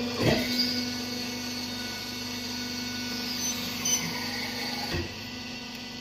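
Interlocking brick-making machine's motor running with a steady hum, with a short knock just after the start and another about five seconds in.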